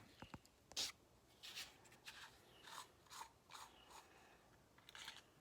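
Quiet, irregular scraping and rubbing from handling a drill bit and the Drill Doctor's chuck, with a sharp click at the start and another just under a second in.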